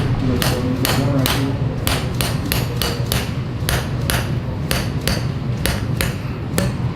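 A rapid series of sharp knocks, about three to four a second, from percussive blows on a patient's back during chiropractic treatment, over a steady low hum.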